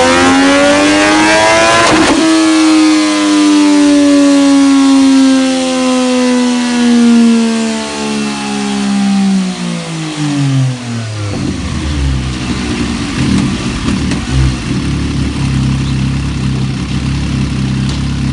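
Motorcycle engine through an aftermarket db-TECH slip-on muffler. The revs climb, there is a sharp crack about two seconds in, then the revs fall slowly for several seconds. About eleven seconds in they drop away to an uneven, lumpy idle.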